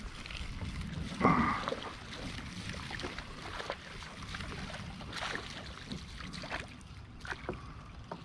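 Casting and working a lure from a fishing kayak. A short whir about a second in as the line goes out, then scattered light clicks and taps from the spinning reel and rod, over a low wind rumble.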